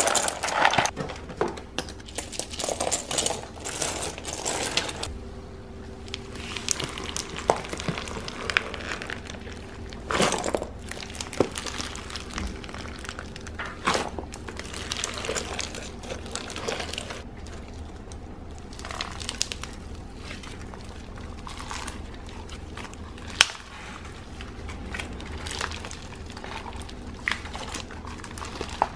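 Hands raking and scooping through a tub of small foam beads and clay candy charms: an irregular rattling, crackling clatter of small pieces, with a few louder scoops. Near the end pink slime is pressed into the beads.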